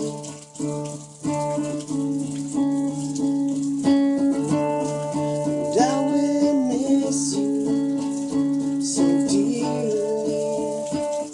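Live music: plucked strings and sustained chords under a melody that slides up and down, over a steady rattling patter.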